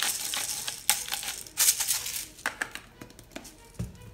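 Hand-twisted pepper mill cracking black peppercorns, a fast rasping crackle that thins out and stops about two and a half seconds in. Near the end there is a single low thump.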